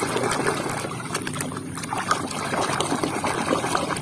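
Water splashing and sloshing in a basin as plastic toy animals are washed by hand, with irregular small knocks and drips.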